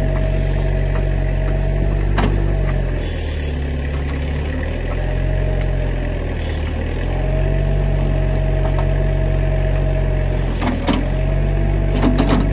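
Bobcat backhoe's engine running steadily and sagging in pitch twice as the bucket digs under load, with a few sharp knocks near the start and near the end as the bucket strikes dirt and roots.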